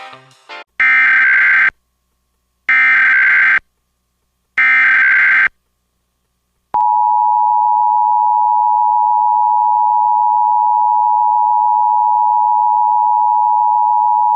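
Emergency Alert System tones: three short screeching bursts of SAME header data, about a second apart, encoding a Severe Thunderstorm Warning. They are followed by the steady two-tone EAS attention signal, held for about eight seconds.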